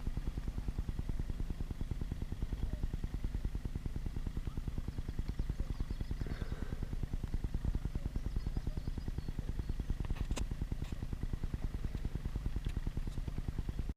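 A small engine running steadily with an even, rapid low pulse, with faint voices about halfway through and a sharp click near the end.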